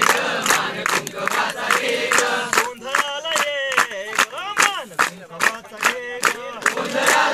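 A group of people singing together while clapping their hands in time, about four claps a second. The claps are the sharpest sound over the sung voices.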